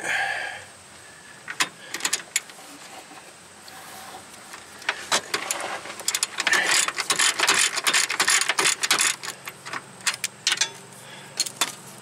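Ratchet wrench clicking in quick runs as a steering rack mounting bolt is backed out, with scattered separate clicks and taps of the socket on the bolt. The fastest, loudest run of clicks comes about halfway through and lasts a few seconds.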